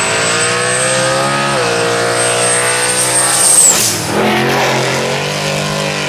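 Drag-racing pickup truck and car engines at full throttle down the strip. The engine note climbs, drops at a gear change about a second and a half in, then climbs again. A high whine holds above it until it falls away about three and a half seconds in.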